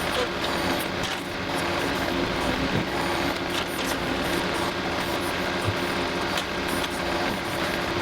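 John Deere 325G compact track loader's diesel engine running steadily under work, with a few light knocks.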